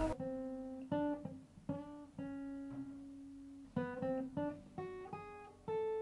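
Background music: an acoustic guitar playing separate plucked notes and chords that ring and fade.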